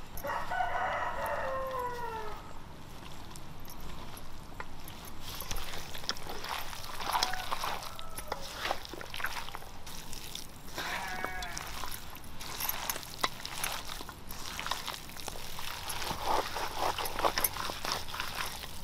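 A rooster crows once at the start, a call of about two and a half seconds that falls in pitch at its end. Shorter farm-animal calls follow twice, over a run of small clicks and knocks.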